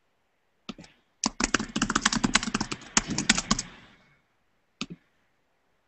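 Typing on a computer keyboard: one keystroke, then a quick run of keystrokes lasting about two and a half seconds, then a single keystroke near the end.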